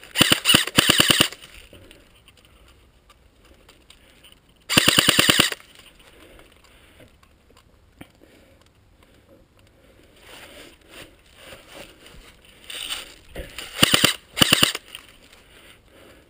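Airsoft electric rifle, a G&G CM16 Raider DST, firing full-auto bursts with a fast, even rattle: a few short bursts at the start, one about five seconds in, and two more near the end.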